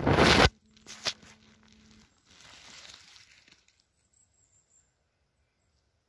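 Close rustling and tearing of moss and forest litter as a bay bolete is twisted and pulled from the ground. The loudest part stops about half a second in, followed by a couple of light snaps and softer rustling.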